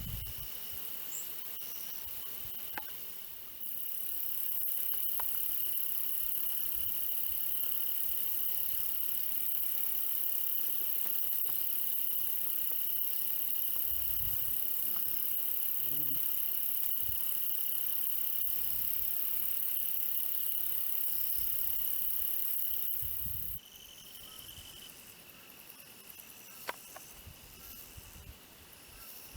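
Grasshoppers chirring in summer grass: a loud, steady, very high-pitched buzz that starts a few seconds in and cuts off suddenly near the end, over a thinner steady insect trill that goes on throughout.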